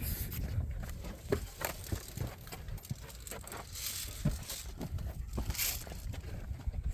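Rustling and crinkling with scattered light knocks, from clothing and gear handled while moving, over a low rumble on the microphone.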